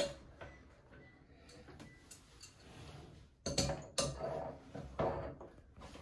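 Scattered clicks and knocks of plastic toilet fill-valve parts against the porcelain tank as the valve is seated and its plastic mounting nut hand-tightened. The loudest knocks come about three and a half and four seconds in, with another near five seconds.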